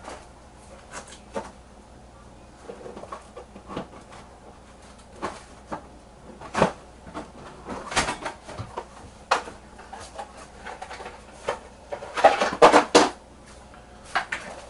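Scattered knocks and clicks of things being handled and moved about while someone rummages for a tool, with a burst of louder clattering about twelve seconds in.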